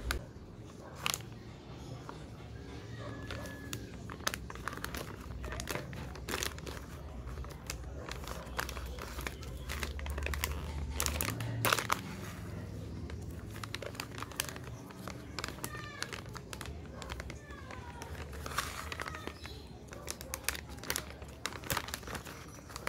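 Packaging being handled, crinkling with many short sharp crackles.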